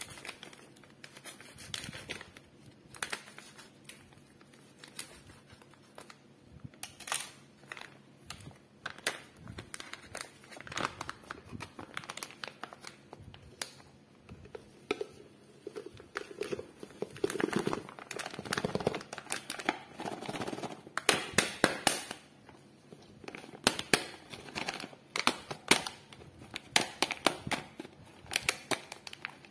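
Clear plastic bag of milk powder crinkling and rustling as it is cut open with a knife and handled, with many scattered sharp clicks and taps from the plastic tub and lid. The handling noise is busiest from about halfway through.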